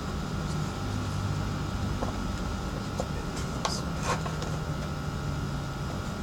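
Homemade drill-driven cylinder sanding drum running with a steady motor hum whose pitch shifts slightly about a second in and again near four seconds, with a few light ticks.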